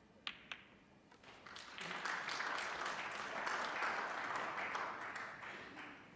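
Two sharp clacks of snooker balls colliding as the cue ball strikes the pack of reds, then audience applause that builds about a second and a half in and fades away near the end.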